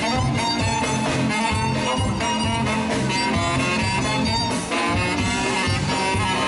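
Band music with a steady beat: a regular bass pulse under sustained melodic notes.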